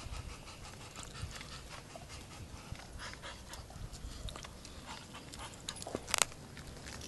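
A Weimaraner panting as it mouths and scuffles with a Muscovy duck, with soft scrapes and ticks throughout. A short, sharp burst of noise comes about six seconds in.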